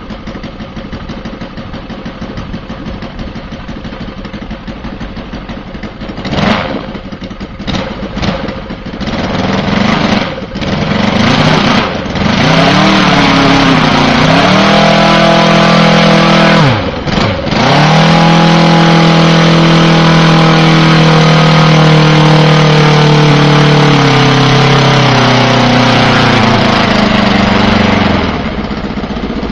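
VT 85 2R 85cc inline-twin four-stroke gasoline model aircraft engine running with its propeller turning. It idles at first, then takes several short throttle blips. It is then held at high revs, with a brief throttle chop and pickup partway through, its pitch sagging slowly before it drops back to idle near the end.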